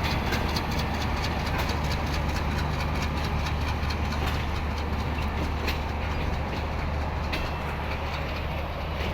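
Diesel-hauled passenger train rolling slowly out of a station. A steady low diesel drone runs under irregular wheel clicks and knocks from the coaches.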